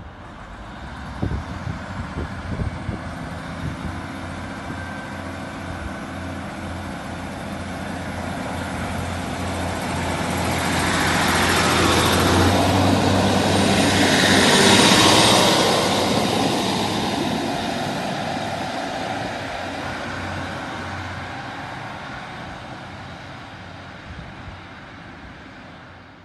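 British Rail Class 150 Sprinter diesel multiple unit passing close by, its underfloor diesel engines running under power. The wheel-on-rail noise swells to a peak about halfway through, then fades as the train draws away. A few knocks come in the first few seconds.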